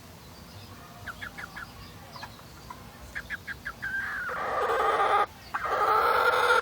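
Young pullet hen making broody noises: two short runs of quick soft clucks, then two long, loud drawn-out calls with a short break between them near the end.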